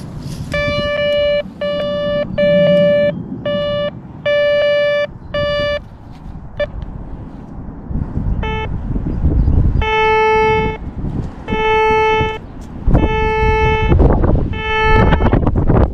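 Dr. Otek MTXR metal detector giving target tones as the coil sweeps over a buried target: about six short beeps at one pitch, then after a short pause about five more at a lower pitch.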